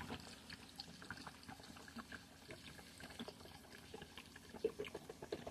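Citronella torch fuel poured from a plastic bottle into a filter bag in a bucket, a faint trickle with small drips and splashes that grow a little louder near the end.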